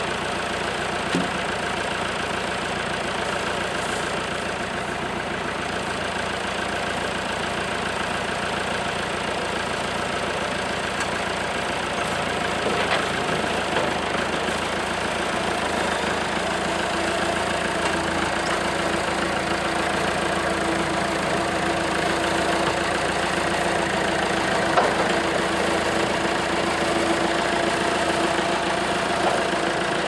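Farm tractor engine idling steadily, then running a little louder from about halfway through as the tractor pulls away towing a log trailer.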